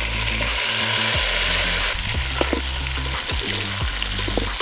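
Chicken pieces sizzling in hot oil in a pot, loudest for the first two seconds, with a metal spatula scraping and clinking against the pot a few times as they are stirred.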